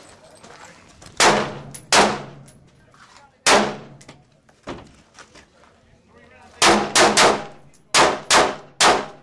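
AR-15 carbine firing about eight single shots, each with a short echoing tail: three spaced shots, then a quick string of three about two-thirds in, then three more.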